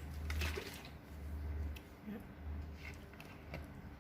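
Wet noodle salad being mixed with a pestle and spoon in a mortar: three dull low thumps about a second apart, with light clicks and squishes.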